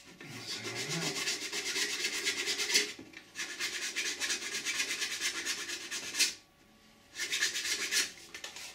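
Small hand file rasping along a welded seam on a 3D-printed ABS plastic part in quick back-and-forth strokes, dressing the weld flush. The strokes come in three bouts, with a brief pause about three seconds in and a longer one a little after six seconds.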